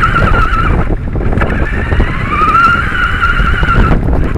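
Radio-controlled car driving: its electric motor whines with a wavering pitch over rumble from the tyres on the ground. The whine breaks off for a moment about a second in, comes back rising in pitch as the car speeds up, and stops shortly before the end.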